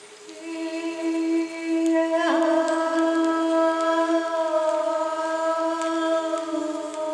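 A woman's voice toning one long, steady sung note with strong overtones. About two seconds in it slides quickly to a new pitch and holds again.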